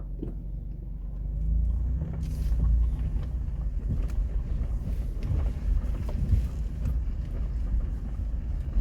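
Four-wheel-drive vehicle's engine running as it drives slowly over beach sand, a steady low rumble that grows louder about two seconds in.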